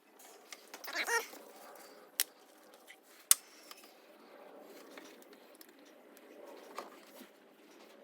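A short pitched animal call about a second in, then two sharp clicks, over faint background.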